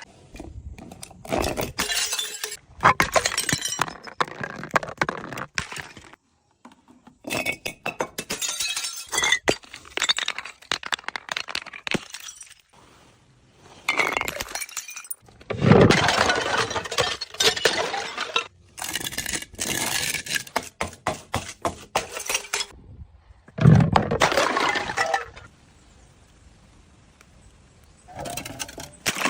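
Glass bottles breaking and shattering one after another, each break a burst of crunching glass followed by clinking shards, with short pauses between.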